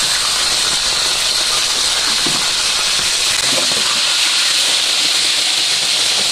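Chicken pieces frying in hot oil in a wok: a steady, loud sizzle.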